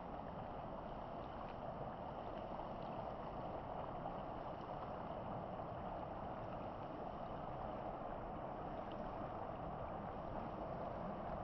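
Steady rushing of a flowing stream, an even unbroken sound with faint splashy ticks.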